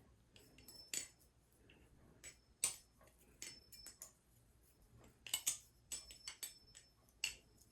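Baliplus Orca V2 clone balisong being flipped: irregular light metal clicks and clacks of the handles and blade knocking together, busiest about five to seven seconds in.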